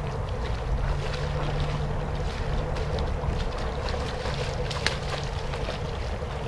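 Creek water running and splashing, with wind rumbling on the microphone and a sharp click about five seconds in.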